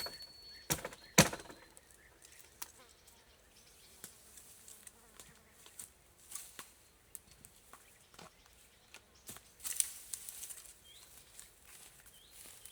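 Two sharp blows chopping into wood about a second in, then scattered light knocks, clicks and a brief rustle as wood is handled.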